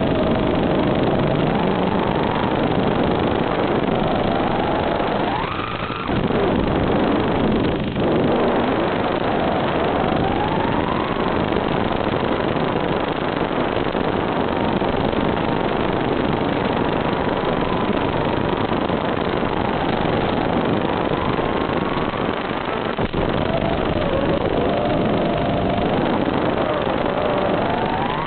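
Electric motors and propellers of a battery-powered FPV drone in flight: a buzzing whine over rushing noise, its pitch rising and falling as the throttle changes. The pitch holds fairly steady through the middle and climbs sharply a few seconds in and again near the end.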